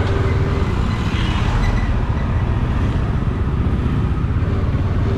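Bajaj Dominar 400 motorcycle's single-cylinder engine running steadily, a low, even exhaust rumble.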